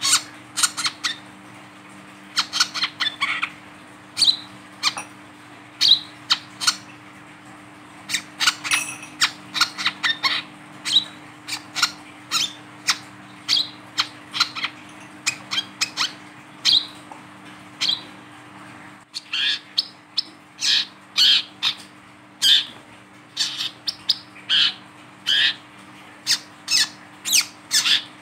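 Male brown-throated sunbird calling: short, sharp, high chirps in quick runs of several a second, broken by brief pauses.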